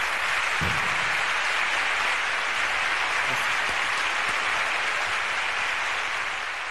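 Applause from an audience, dense and steady clapping that eases off a little near the end.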